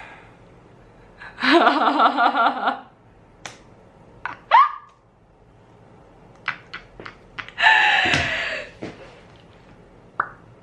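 A young woman laughing and squealing excitedly, with gasps, short squeaks and a few sharp clicks or knocks in between; a longer breathy exclamation comes about eight seconds in.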